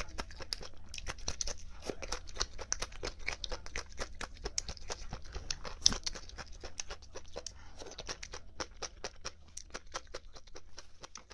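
Close-miked chewing of crunchy chicken cartilage: a dense, irregular run of crunches, with one sharper crunch about six seconds in.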